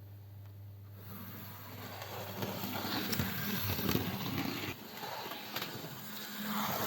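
Small model train locomotive running on its track: an electric motor hum with wheels clattering over the rails, starting about a second in and growing louder.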